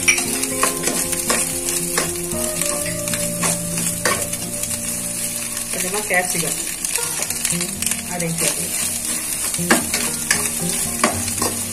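Chopped vegetables (carrot, beans, cabbage) sizzling in hot oil in a stainless steel kadai while being stir-fried, with a metal spatula scraping and clicking against the pan again and again.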